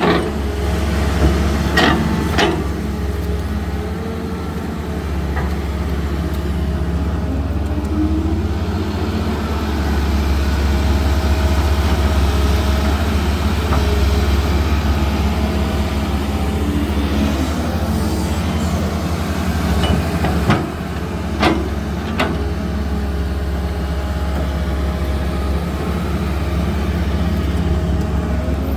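Excavator's diesel engine running steadily, with a few sharp knocks: two about two seconds in and two more about two-thirds of the way through.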